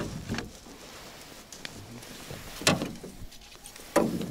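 A few sharp knocks of handling on an inflatable boat and its rod gear, the loudest near the end as a hand grabs a bent trolling rod after a bite.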